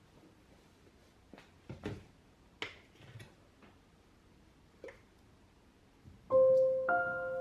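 A few soft clicks and knocks, then background music starts with sustained piano-like notes about six seconds in.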